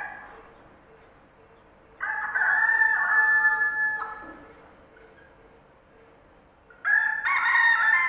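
Rooster crowing twice. Each crow is a held, pitched call about two seconds long; the second starts near the end.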